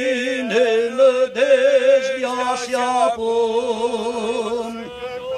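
Male voices chanting an Orthodox memorial troparion for the departed in Byzantine style, drawing out one syllable in a long melisma with a wavering pitch.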